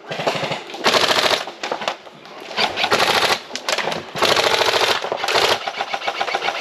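Airsoft electric guns firing full-auto: about four loud bursts of rapid shots, each roughly half a second long, with quieter fire between them.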